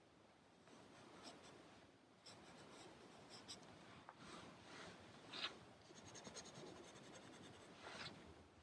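Pencil scratching faintly on paper in several short sketching strokes, with brief pauses between them.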